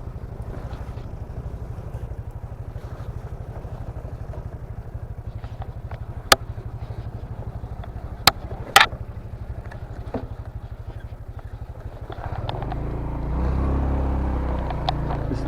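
Motorcycle engine running at low speed with a steady low putter, broken by a few sharp clicks; about twelve seconds in the engine gets louder as it takes on throttle.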